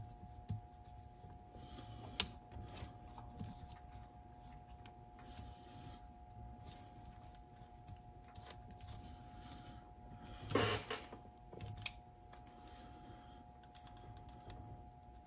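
Plastic wire-holding piece being worked into place on a cassette deck's tape transport mechanism: scattered light clicks and taps of small plastic and metal parts, with one louder, longer handling noise about ten seconds in.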